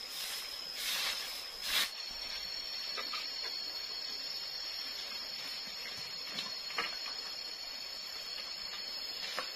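A stick broom sweeps over leaves and dirt, with two or three loud swishes in the first two seconds. A steady high-pitched drone of forest insects runs underneath. After that the drone goes on, with a few light clicks and knocks of sticks being handled.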